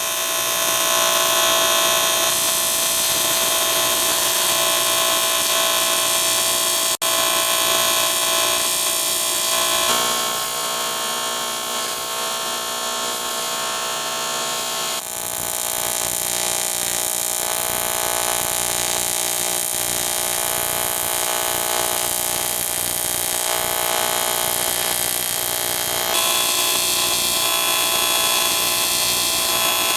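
AC TIG welding arc on aluminum from an HTP Invertig 400 inverter welder: a steady, loud buzz with a hiss. It breaks off for an instant about seven seconds in and shifts in tone a few times.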